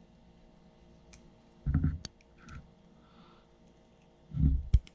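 Small metal hand tools being handled: light clicks from a tiny 1/4-inch drive ratchet and its sockets, with two dull knocks about two seconds in and near the end, the second ending in a sharp click.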